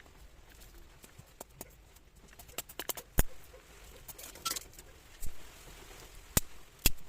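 Dry twigs being handled and broken up for kindling: scattered sharp snaps and clicks, the loudest about three seconds in and twice near the end.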